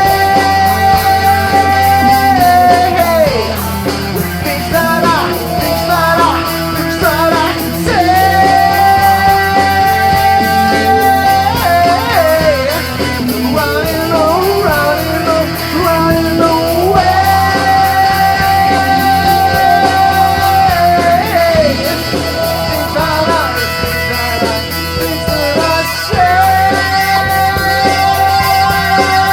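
Rock band playing live, with electric guitar, bass and drums. On top, a lead line alternates long held notes of two to three seconds with bending, wavering runs.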